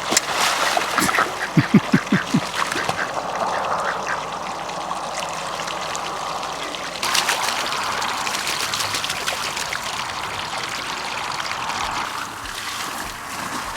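Domestic ducks quacking, with a quick run of about five quacks about two seconds in, over water running into the duck pond as it fills. The splashing of the water grows louder from about seven seconds in.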